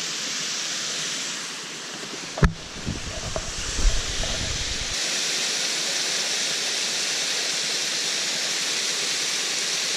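Waterfall rushing steadily. About two and a half seconds in there is one sharp knock, followed by low rumbling bumps for a couple of seconds.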